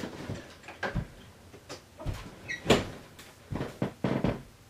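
A series of irregular knocks and thumps, about a dozen over a few seconds, from someone moving about close to the camera as he steps into frame. A brief squeak comes about halfway through.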